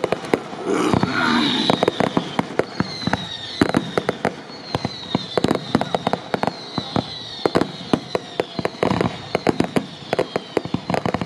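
Fireworks display: a dense, uneven run of bangs and crackling bursts from aerial shells, with several high falling whistles in the first half.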